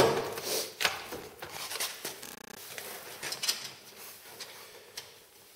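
Handling clatter: a sharp knock at the start, then scattered clicks and light metallic clinks that thin out and fade after about four seconds.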